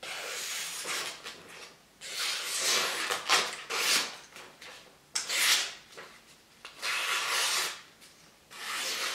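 A puukko's RWL-34 steel blade slicing through a hand-held sheet of paper in about six hissing cuts, each up to about a second long, with short pauses between. The blade is being tested for sharpness on the paper.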